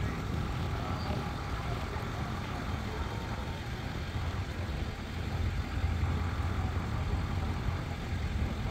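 Motor vehicle engines idling, a steady low drone with a noisy hiss above it.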